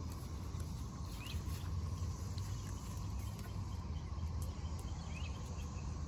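Rural outdoor ambience: a steady low rumble with two faint, short bird chirps, about a second in and again about five seconds in.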